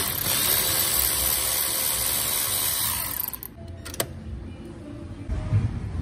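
A power tool, most like a power ratchet, runs steadily on a fastener for about three seconds and then stops. A sharp click follows about four seconds in, then a low knock near the end.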